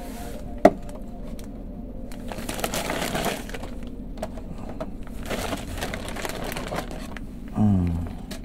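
Packaging of Hot Wheels die-cast cars handled and rustled, with a sharp click just under a second in and small scattered clicks after it. A short, low hum falling in pitch comes near the end.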